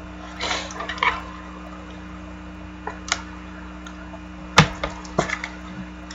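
Trading cards being handled on a table: a short rustle and slide near the start, then a few sharp clicks and taps, the loudest about four and a half seconds in, over a steady low hum.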